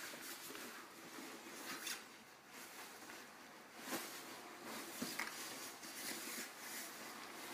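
Fabric rustling and scraping as a large cloth flag is bundled and pushed into a grey fabric bag, with a few sharper rustles about four and five seconds in.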